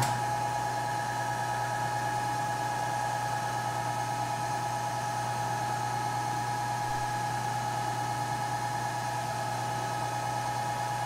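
Milling machine spindle motor running steadily: an even hum with a few steady higher tones and no change in speed.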